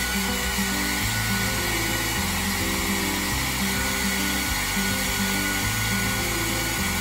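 Handheld hair dryer blowing steadily, a dense rushing of air with a faint steady whine. Background music with a bass line plays underneath.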